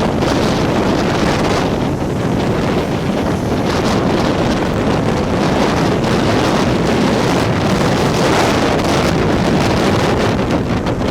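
Strong tropical-storm wind rushing and buffeting the microphone, loud and steady throughout.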